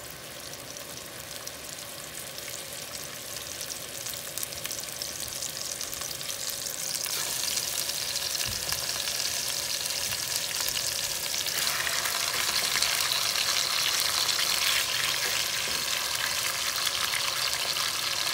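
Veal eye round searing in hot oil in an enamelled cast-iron Dutch oven on medium-high heat, a steady sizzle as the meat browns. The sizzle gets louder in steps about seven and about eleven seconds in, as a second and then a third piece go into the pan.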